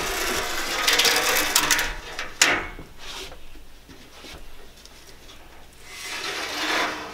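A roll of window-screen mesh being unrolled and slid across a screen frame and table: a loud rustling scrape for about two seconds with a sharp click, then a softer rustle swelling near the end.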